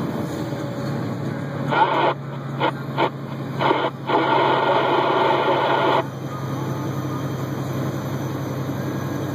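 Truck's engine droning steadily in the cab while driving. A burst of rushing noise, broken into short spikes, comes in about two seconds in and cuts off sharply about six seconds in.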